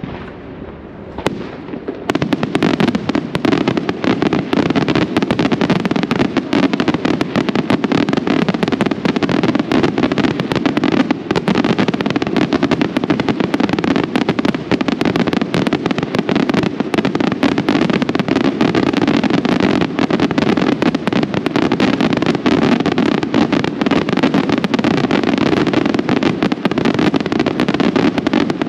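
Aerial firework shells bursting. A few separate bangs in the first two seconds, then a dense, continuous barrage of overlapping bangs and crackling reports.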